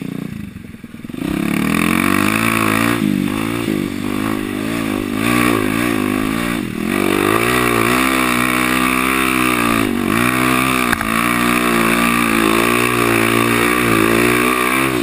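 Dirt bike engine pulling hard up a steep trail climb, its pitch rising and falling with throttle and gear changes, with brief drops about 3, 7 and 10 seconds in. It comes up to full revs about a second in after a quieter start.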